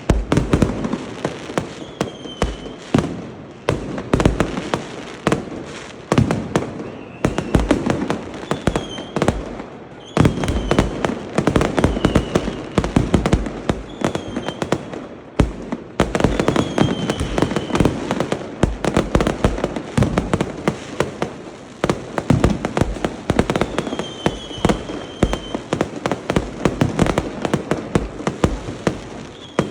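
A dense, continuous barrage of fireworks and firecrackers banging and crackling, surging every few seconds, with short high whistles scattered through it.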